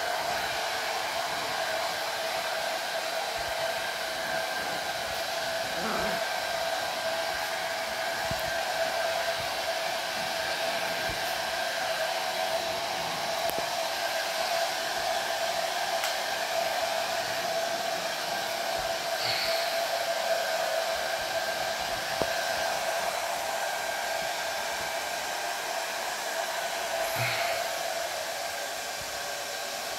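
Hair dryer running steadily at one setting: a constant rush of air with a steady hum.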